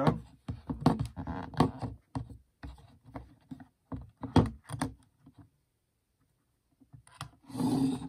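Hard plastic clicks, knocks and scrapes as the mounting plate of a first-generation Ring Video Doorbell is slid off and the unit is handled and set on a wooden tabletop. The handling noises go quiet for a couple of seconds near the end, then a short scraping rush.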